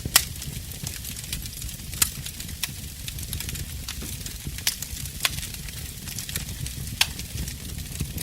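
Wood fire burning in a fireplace, crackling: a steady low rumble and hiss under irregular sharp pops of burning logs, the loudest about five times.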